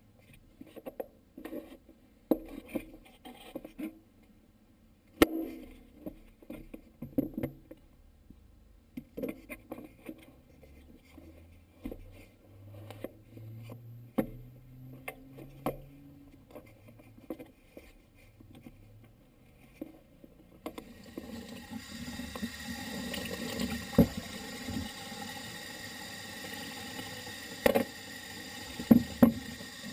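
Hands working a dirt bike's air filter out of its plastic airbox: scattered scrapes, clicks and knocks. About two-thirds of the way through, water from a tap starts running into a utility sink in a steady rush, with a few knocks as the filter is handled under it.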